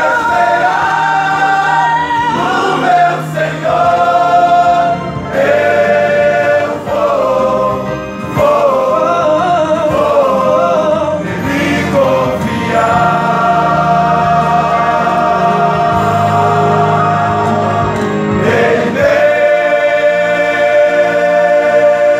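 Men's gospel choir singing in harmony, with long held chords.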